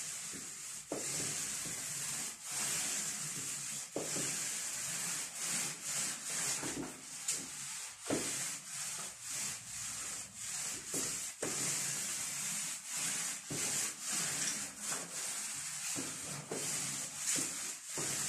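Paint roller rolling very liquid primer onto a wall: a hissing rasp of nap on plaster in repeated strokes.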